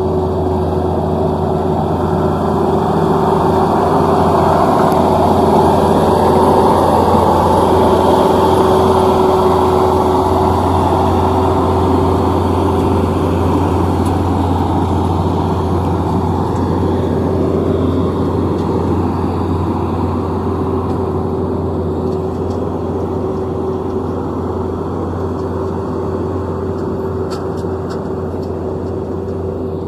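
Yanmar AW70 combine harvester's diesel engine running steadily under load with the whir of its machinery, a constant low hum with a steady mid-pitched tone above it. It grows louder over the first several seconds, then slowly fades.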